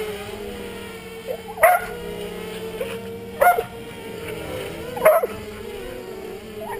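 A dog barking three times, about a second and a half to two seconds apart, over the steady hum of the Peon 230 quadcopter's electric motors.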